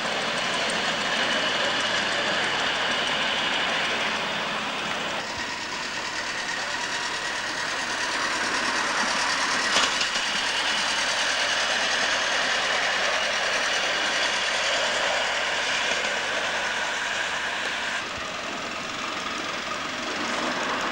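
Miniature ride-on locomotives running past on a ground-level track: a steady mechanical running noise, with one sharp click about ten seconds in.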